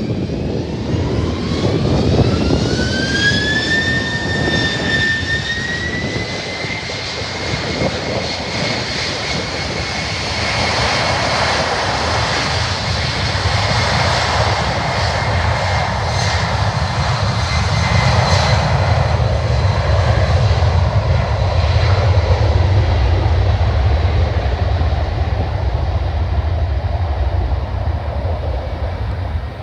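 Boeing 767-300F twin-jet freighter's engines spooling up to takeoff power: a whine rises over the first few seconds, then holds steady. A broad roar and low rumble build under it as the aircraft rolls and climbs away, loudest past the middle.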